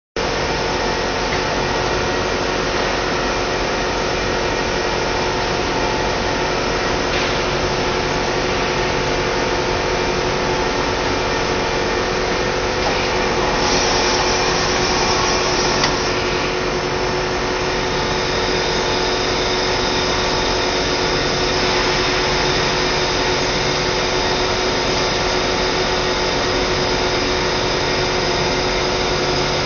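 SRB100A extrusion blow moulding machine running: a steady mechanical hum and hiss with a few constant tones. About halfway through a louder hiss lasts a couple of seconds and ends in a sharp click.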